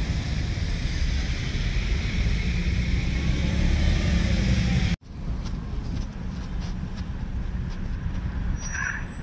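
Steady road traffic noise, a low rumble of cars passing outdoors. It breaks off sharply about five seconds in, then carries on slightly quieter.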